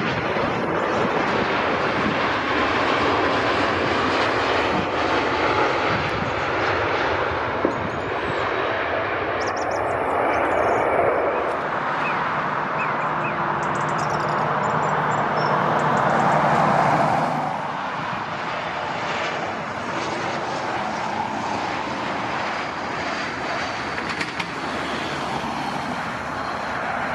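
Jet engines of an American Airlines Boeing 787 airliner make a steady broad rush. From about halfway, a low steady hum comes in and grows louder. About two-thirds of the way through it cuts to the quieter, steady jet noise of an Embraer E190 landing.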